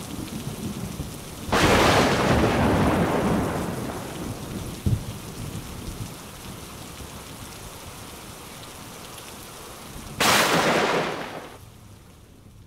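Thunderstorm: a steady hiss of rain with two sudden thunderclaps. The first, about one and a half seconds in, rumbles away over several seconds; the second, near the end, is shorter and fades out.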